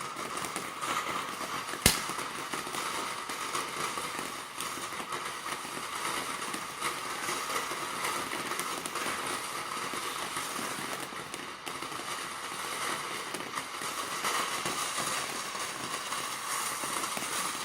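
TNT Fireworks "Artificial Fire" fountain firework burning: a steady hissing spray of sparks with light crackling, and a single sharp pop about two seconds in.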